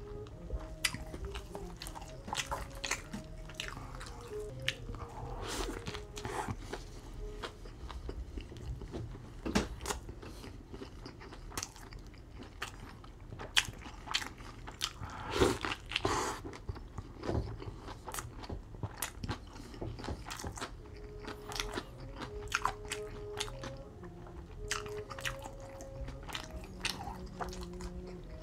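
A person chewing and biting into a Whopper with cheese: wet mouth clicks and squishing of bun and beef patty, with some crunchy bites. The loudest bite comes about fifteen seconds in.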